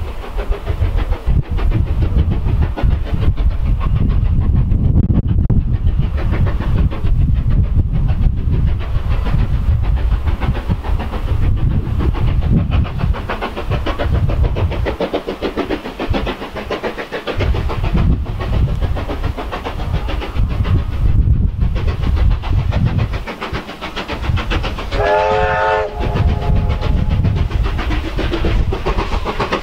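USATC S160 steam locomotive approaching with a train, heard as a steady loud rumble of exhaust and running, and sounding its whistle once, briefly, about 25 seconds in.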